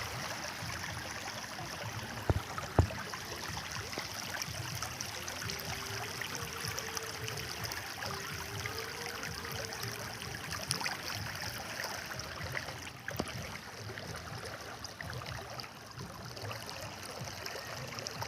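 Steady rush of floodwater flowing over a road and flooded paddy fields, with two sharp knocks about two to three seconds in.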